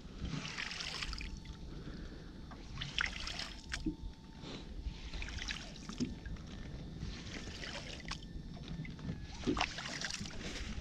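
Water slapping and sloshing against the hull of a metal boat on choppy water, in short splashes every second or two over a steady low rumble.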